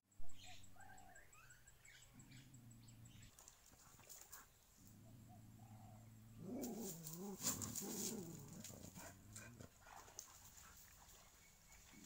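A dog whining and whimpering in excitement at seeing other dogs, in several stretches, with the loudest and most wavering whine between about six and a half and nine and a half seconds in. Soft clicks and a few bird chirps are also heard.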